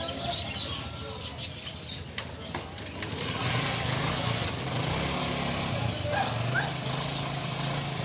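Caged birds chirping faintly, then from about three seconds in a small motor vehicle engine running close by, steady with a brief rise in pitch near the middle.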